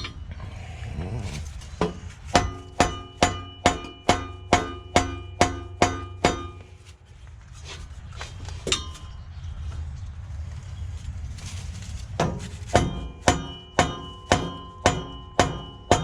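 Rubber mallet striking a steel exhaust pipe to drive it back into place, the pipe ringing after each blow. There are two runs of steady strikes about two a second, with a single blow in between. The pipe is not yet sliding back into position.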